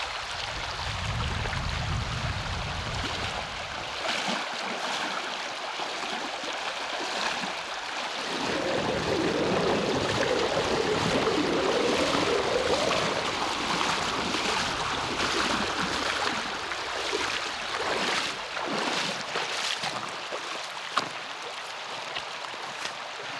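Wading across a wide, shallow river on foot: the stream rushes steadily while the legs slosh and splash through the water. The sloshing swells about a third of the way in, and single splashing steps follow in the second half.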